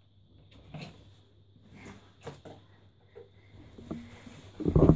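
Slime being worked by hand and spoon: a spoon stirring thick foamy mixture in a glass bowl and hands pressing wet slime on a tabletop, heard as scattered soft taps, clicks and squelches. Near the end a much louder burst of handling noise sets in.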